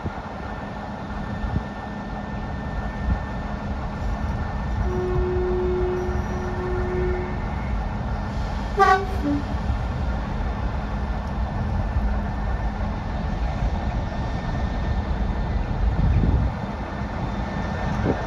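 Heritage diesel locomotive running with a steady drone. A low tone sounds for about two seconds around five seconds in, then a short two-tone horn toot, high then low, about nine seconds in.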